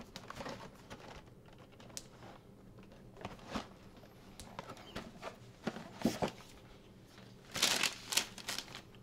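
A cardboard Nike shoebox being handled and opened: scattered light taps and scrapes of the box and lid, then a louder rustle of paper near the end.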